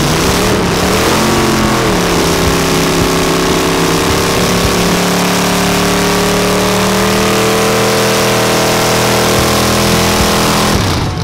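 A car engine revs up, then is held at high, steady revs for about nine seconds over a loud hiss, and drops off sharply near the end. This is typical of a burnout, with the rear tyres spinning against the pavement.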